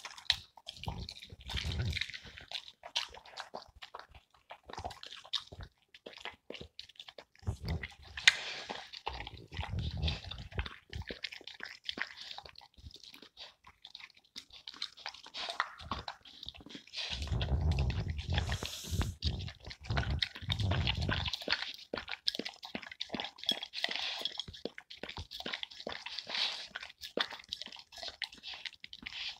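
Dog eating wet raw meat and egg from a small pan: steady wet chewing, smacking and licking, with many small clicks of tongue and jaws. There are heavier, fuller stretches about a second in, around eight to ten seconds in, and around seventeen to twenty-one seconds in.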